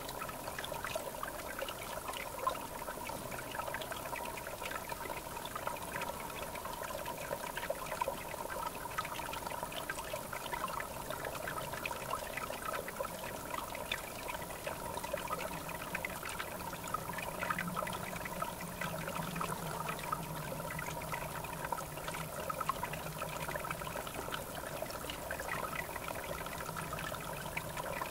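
River water trickling and babbling steadily. A faint low drone comes in about halfway through.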